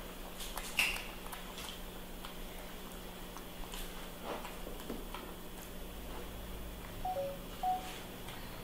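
Scattered small clicks and taps of a baby macaque handling and eating food on a wooden tabletop, the loudest about a second in. Near the end come three short, high squeaks.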